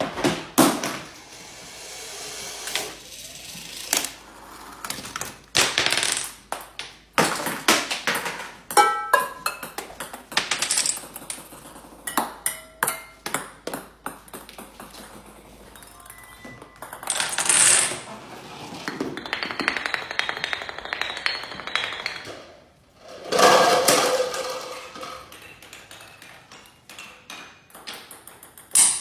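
Homemade Rube Goldberg chain-reaction machine running: a long string of irregular knocks, clicks and clatters as balls roll, drop and strike objects. A few short ringing pings sound midway.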